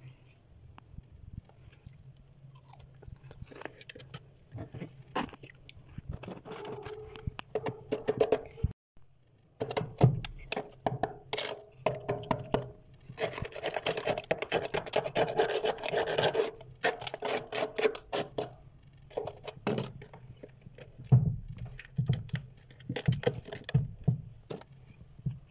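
Freezer frost and thin sheets of loosening ice being scraped and broken by hand, giving irregular crackling, rasping and small cracks, densest about halfway through.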